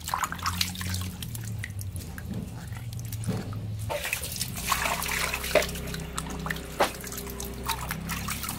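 Hands rubbing, squeezing and lifting pieces of python skin in a steel bowl of water, with irregular splashes and drips as the skin is washed after its scales have been scraped off.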